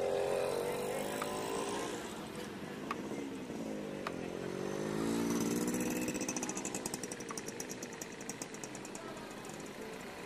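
Motorcycle engine running on a street, its pitch rising and falling as it revs and passes, loudest about halfway through. A fast, even, high ticking joins it in the second half.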